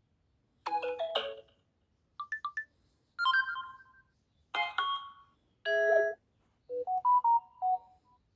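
A Samsung Galaxy A02 phone's speaker playing short ringtone chimes one after another: about six brief melodic snippets, each different, with short silences between them.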